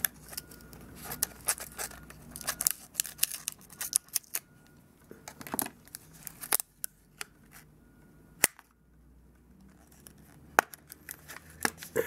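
Scissors snipping through paper wrapping on a RAM module package: a run of sharp, irregular snips and clicks that thins out midway, with more clicks from handling the package near the end.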